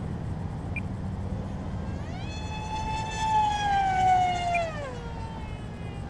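Electric motor and propeller of a FunJet radio-control jet whining through a fast fly-by. The pitch rises as the jet comes in about two seconds in, it is loudest in the middle, then the pitch drops sharply as it passes near the five-second mark. Wind rumbles on the microphone underneath.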